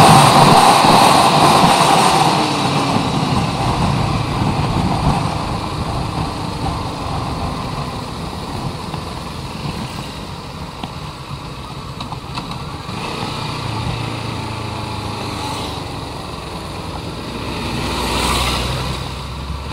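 Motorcycle being ridden, heard from a chest-mounted camera on the rider. The loud rush of riding fades over the first several seconds as the engine note falls, then the bike runs more quietly, with a brief swell near the end.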